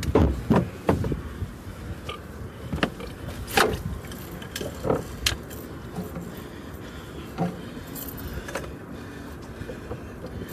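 Scattered knocks, rustles and light clinks of a freshly landed blue catfish and fishing tackle being handled to get the hook out.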